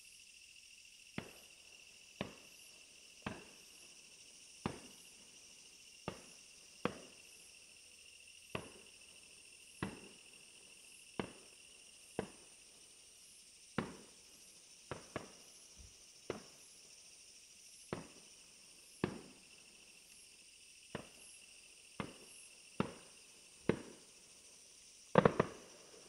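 Fireworks shells bursting in a steady series, a sharp bang every second or so with a short echoing tail, the loudest cluster of bangs near the end. A steady high insect chirring runs underneath.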